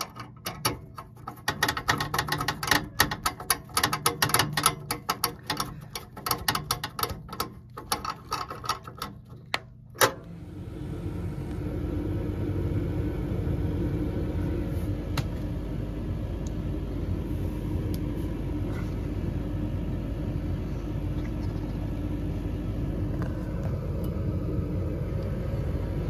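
Rapid clicking and scraping of a screwdriver against the furnace's sheet metal as the flame sensor is screwed back in. About ten seconds in there is a sharp click, then the Carrier gas furnace starts up: its draft inducer motor spins up into a steady low hum as the furnace is test-fired after the flame sensor cleaning.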